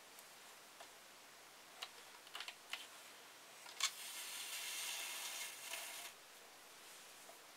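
A few faint small clicks as stitches are lifted off the plastic needles of a Sentro knitting machine during cast-off, then about two seconds of soft rustling as the yarn tail is drawn through the loops.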